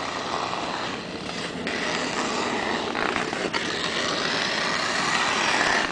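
Ice skate blades scraping and gliding over the ice in a steady hiss, growing louder toward the end as the skater nears.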